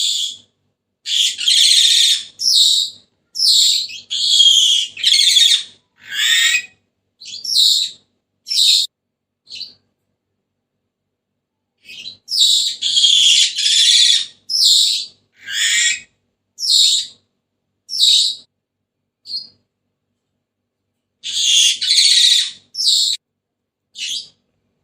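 Senegal parrot calling: runs of short, high-pitched calls, each well under a second. The runs come in three bouts separated by pauses of a second or two.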